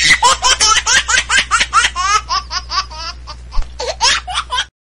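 High-pitched cartoon-style laughter, a rapid run of 'ha-ha' syllables, cutting off suddenly near the end.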